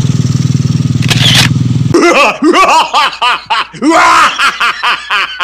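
Motorcycle engines idling with a steady low hum. About two seconds in the hum drops out and a string of quick, pitched, rising-and-falling comic sound effects takes over.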